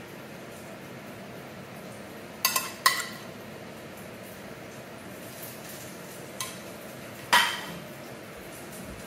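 A metal utensil and ceramic dishes clinking as noodles are served from a bowl onto a plate. There is a quick cluster of three sharp clinks about two and a half seconds in, a light tap after six seconds, and the loudest clink, ringing briefly, about seven seconds in.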